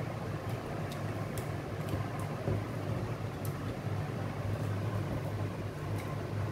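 Steady low mechanical hum, with a few soft, sharp clicks and smacks from people eating rice and mutton curry by hand.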